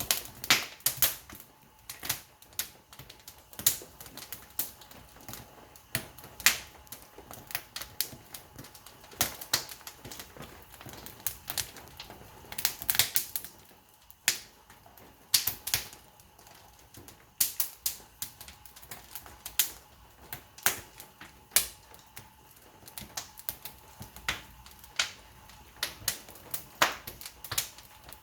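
Burning wood crackling and popping in the firebox of a wood-fired kiln during firing. The pops are sharp, irregular and several a second.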